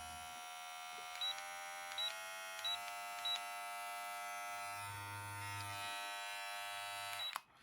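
VGR V682 cordless hair clipper running with a steady buzz, with a few brief clicks and slight shifts in pitch in the first few seconds, then switched off near the end.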